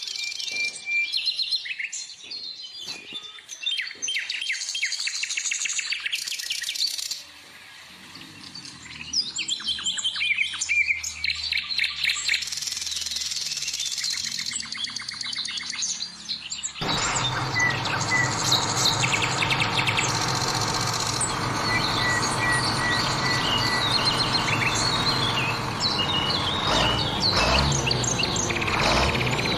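Small birds chirping and twittering. A little over halfway through, the sound changes abruptly to a louder steady noise that runs on beneath the birdsong.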